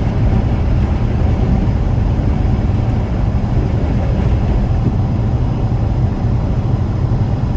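Steady low rumble of a semi truck's engine and road noise while driving, heard inside the cab.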